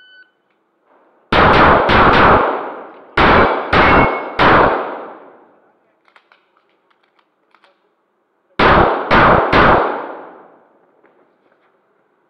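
A shot timer's short start beep, then nine pistol shots fired in three strings of three, the shots in each string about half a second apart. The second string follows the first closely, and the last string comes after a pause of about four seconds. Each shot echoes off the concrete walls of the indoor range.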